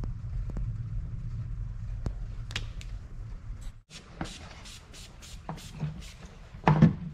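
Hands handling bike parts and decal material: scattered small clicks and taps over a low steady hum. The hum cuts off a little past halfway, and a louder knock comes near the end.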